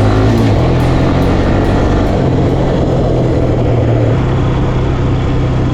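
Farm bike engine running steadily under a rider herding sheep, its note shifting a little about four seconds in.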